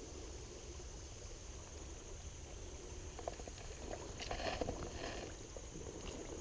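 Gentle water sloshing and splashing in a river, rising briefly about four seconds in.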